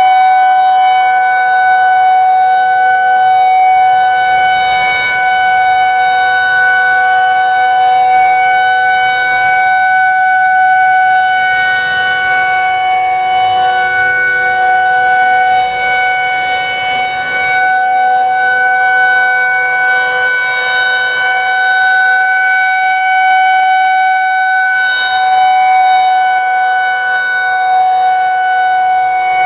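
Federal Signal 2001-130 outdoor warning siren sounding the steady Alert signal: a loud tone held at one unchanging pitch, with only small rises and falls in loudness.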